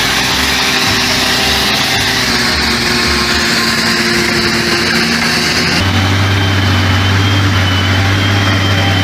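Heavy vehicle engine running steadily. About six seconds in, an edit switches to a deeper engine with a strong low hum.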